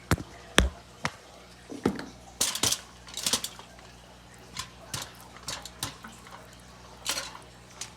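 Kitchen utensils and dishes knocking and clinking during food preparation: a dozen or so scattered sharp knocks with a few short scraping or rustling noises, the loudest about half a second in.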